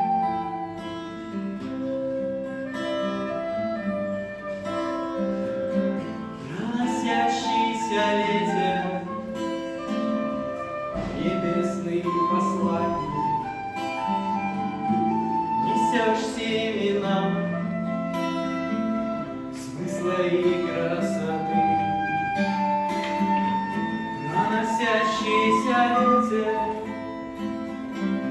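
Instrumental introduction of a song: sustained melody notes over plucked guitar-like accompaniment, swelling in several waves.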